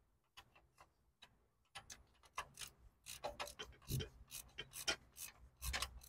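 Faint, irregular light metal clicks and rubbing from a hand tool turning a diesel fuel injector line nut onto the injector, backed off and turned again while it threads on; the clicks come thicker after the first second and a half.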